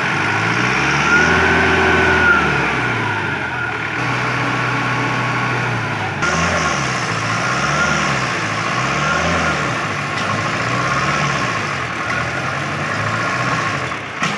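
Mahindra Arjun 555 DI tractor's diesel engine labouring under load as it hauls a soil-laden trailer through soft mud. The revs rise and fall repeatedly, about five surges.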